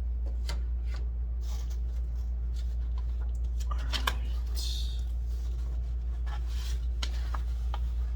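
Scattered light clicks and taps, with a short papery rustle about halfway through, as the parts and packaging of an aluminium open-frame PC case are handled, over a steady low hum.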